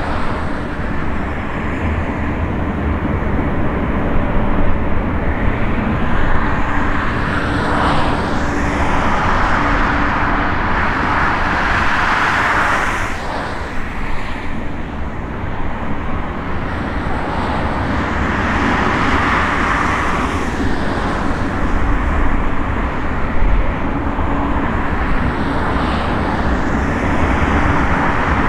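Lockheed ER-2's single General Electric F118 turbofan running at low taxi power as the jet rolls slowly along the runway: a steady jet rush over a low rumble, swelling and easing several times.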